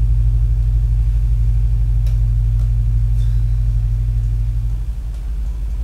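Loud, low electrical hum, pulsing rapidly and evenly, that drops in level about five seconds in.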